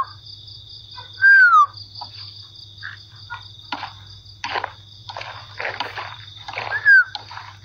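Night insects chirring steadily at a high pitch, with loud, short whistled calls falling in pitch from an animal, twice: about a second in and near the end. From the middle on, irregular short scuffs and crunches come close by.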